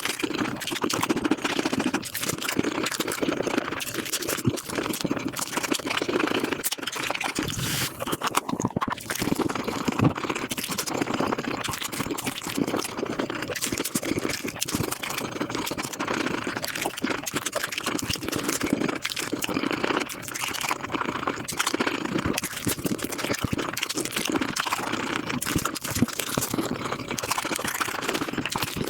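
Close-miked eating sounds sped up five times: chewing and crunching of food run together into a dense, rapid clicking chatter.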